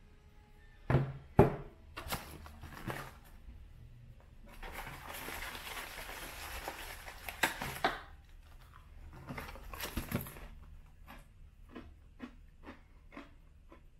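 Two sharp knocks about a second in, then the packaging of a box of Armenian cracker bread rustling and crinkling for a few seconds as a cracker is taken out, with a shorter rustle near ten seconds. Near the end, a run of short crisp crunches as the cracker is chewed.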